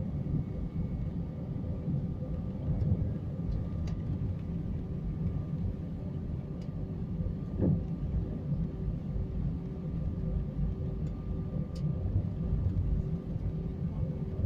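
Cabin of an Airbus A319 taxiing: a steady low rumble with a constant engine hum, and a few faint clicks.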